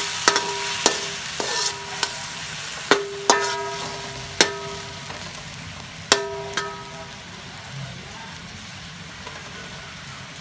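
Pork frying with ginger in oil in a metal wok: a steady sizzle while a metal spatula stirs and knocks against the wok, about ten ringing clanks. The clanks stop about two-thirds of the way through, leaving a softer bubbling sizzle.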